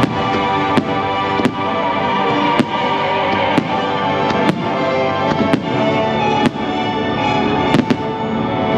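Fireworks going off in sharp bangs, about one a second with a quick double near the end, over the show's loud music soundtrack.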